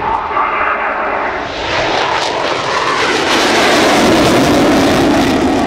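Panavia Tornado's twin Turbo-Union RB199 turbofans at full power in afterburner for takeoff and climb-out: a loud jet roar that builds to its peak about four seconds in, falling in pitch as the aircraft passes.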